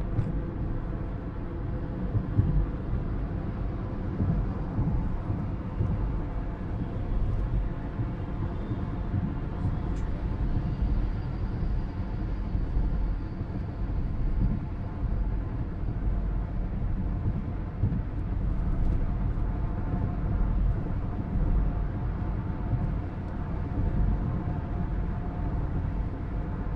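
A car driving along a road: a steady low rumble of engine and tyres, with a few faint steady tones above it.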